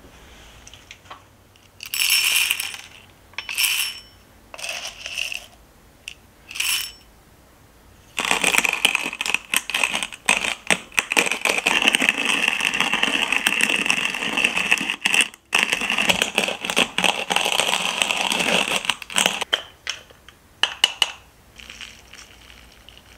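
Manual hand-cranked coffee grinder grinding whole coffee beans: a dense, rapid crackling lasting about eleven seconds. It is preceded by a few short rattling bursts and followed by a few small clinks.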